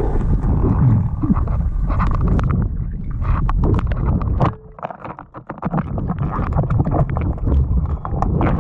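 Underwater sound picked up by a camera during a breath-hold dive: a low rumble of moving water with many irregular clicks and knocks, briefly quieter about halfway through.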